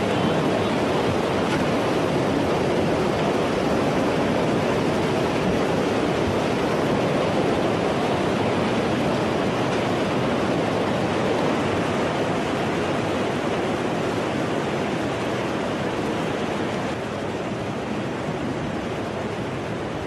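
Tsunami floodwater rushing and churning in a steady, loud wash of noise, a little quieter near the end.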